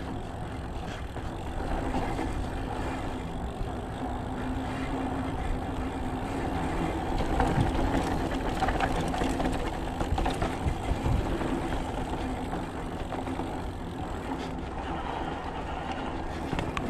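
Mountain bike being ridden: a steady rumble of tyre and wind noise, with a cluster of short knocks and rattles in the middle.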